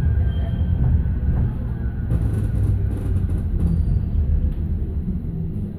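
Manchester Metrolink tram (Bombardier M5000) running slowly along a city street, heard from inside the passenger car: a steady low rumble of traction motors and wheels on rail that eases off a little toward the end.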